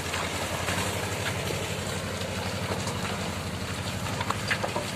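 Mahindra Bolero Pickup's diesel engine idling steadily, with an even low-pitched pulse.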